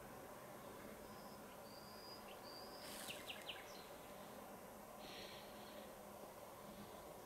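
Faint, steady outdoor ambience hiss, with a few short high chirps about a second in, a quick cluster of clicks around three seconds, and a brief hiss near five seconds.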